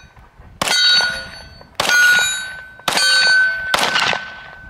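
Four shots from a Glock 43X 9mm pistol, about a second apart. Each shot is followed by the ring of a steel target being hit, which fades over about a second.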